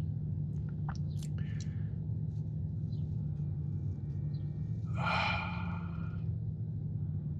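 Person chewing a cookie with a few soft mouth clicks, then a long breathy sigh about five seconds in, over a steady low hum.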